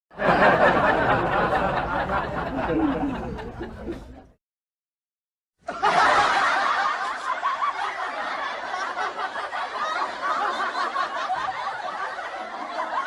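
Two laughter sound effects, separated by a second or so of dead silence: the first fades out after about four seconds, and the second starts abruptly and runs on.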